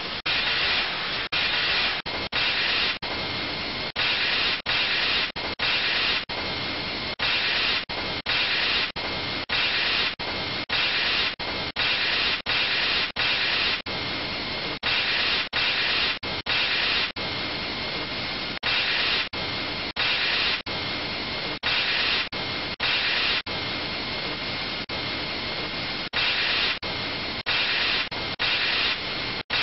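Marzica CS200A semi-automatic optimizing saw running as boards pass under its rubber feed rollers: a steady, loud hissing machine noise with a thin high whine. It is cut by very brief gaps more than once a second.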